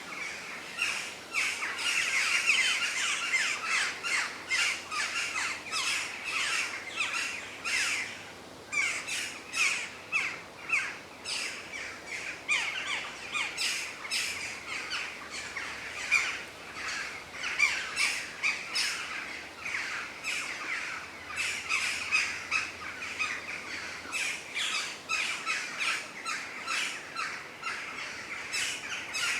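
A flock of birds calling continuously outdoors, many short overlapping calls at once with no pause.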